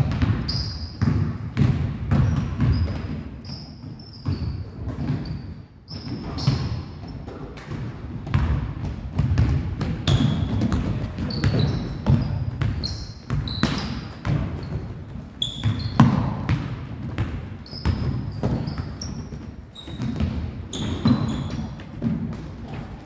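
A basketball being dribbled and bounced on a hardwood gym floor, with rubber-soled sneakers squeaking in short chirps and running footsteps throughout, all echoing in a large gym.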